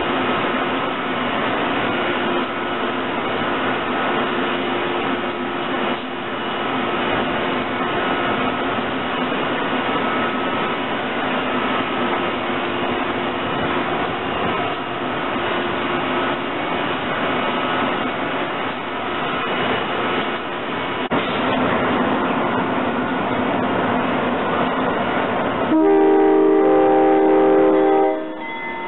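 SEPTA AEM-7 electric locomotive standing at a platform with its equipment running in a steady hum. Near the end a train horn sounds a loud chord for about two seconds.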